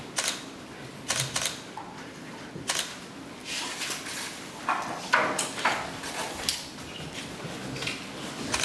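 Scattered camera shutter clicks, some in quick runs, mixed with the rustle and handling of contract papers being signed and passed along a table.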